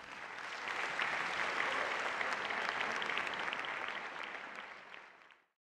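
Audience applauding: many hands clapping together, swelling over the first second, holding steady, then fading away near the end.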